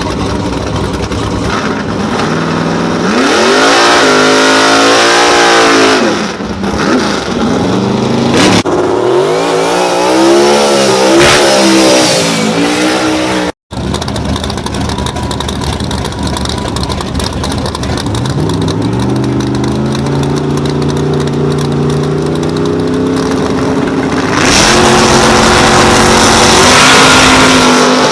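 A drag race car's engine revving hard in repeated rising and falling surges during a burnout. After an abrupt cut, an engine note climbs steadily in pitch and is loudest near the end.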